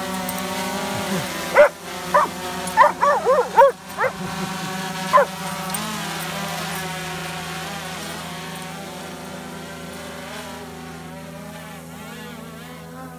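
A Vizsla dog barks about eight times in the first five seconds at a hovering quadcopter drone, over the drone's steady propeller hum. The hum goes on after the barking stops, gradually fading.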